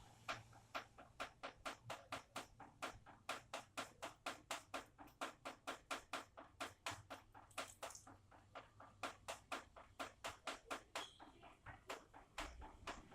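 Water drops dripping: a steady run of sharp, separate drip clicks, about five a second.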